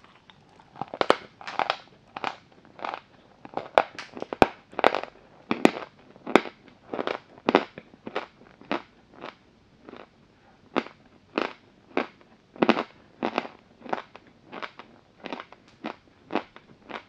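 Close-miked crunching of chalk being bitten and chewed: a steady run of crisp crunches, roughly two a second.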